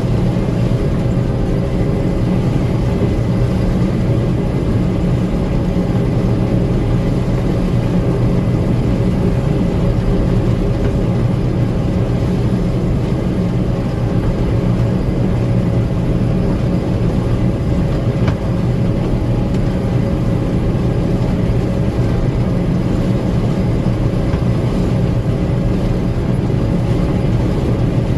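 Gleaner M2 combine running steadily, heard from the cab: a constant engine drone with a low hum and several fixed tones that do not change.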